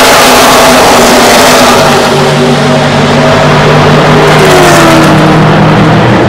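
A pack of stock cars racing past at full throttle, very loud. Their V8 engines run at high revs, the overlapping engine notes falling in pitch as the cars go by.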